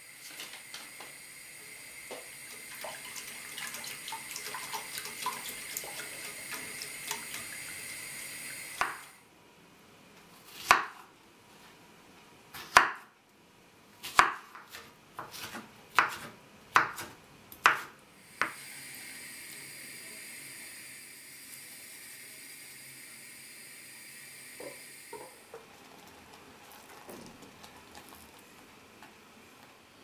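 Knife chopping strawberries on a wooden cutting board: about eight sharp, irregular chops. Before and after the chopping there are stretches of a steady hiss with faint crackles.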